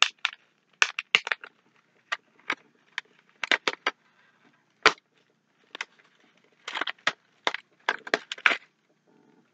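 Candy-bar wrapper crinkling and crackling as it is handled and torn open, in clusters of short sharp crackles with brief pauses between them, stopping near the end.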